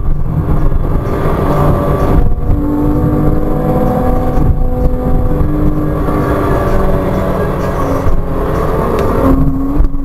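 Porsche Cayman 987.2 2.9-litre flat-six running hard in third gear, heard from inside the cabin. Its note rises and falls as the throttle comes on and off through the bends, over steady tyre and road noise.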